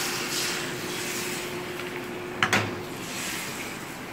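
Beaten egg sizzling in a hot frying pan, a dense hiss that slowly thins. A sharp knock about two and a half seconds in.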